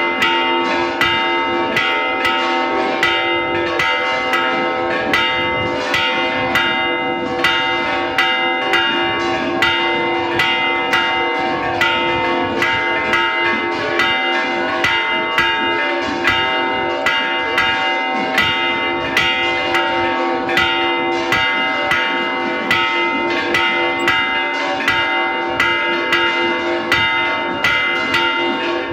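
Church bells rung in a repique: the clappers are pulled by ropes against the hanging bells in a rapid, even run of strikes. Several pitches ring on and overlap between the strokes.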